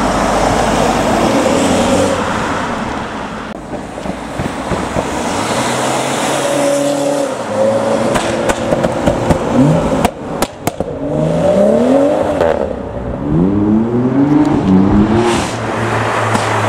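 Car engines revving hard, the pitch climbing again and again in quick rising sweeps through the second half, over a constant rushing noise of cars being driven hard. A cluster of sharp cracks comes about ten seconds in.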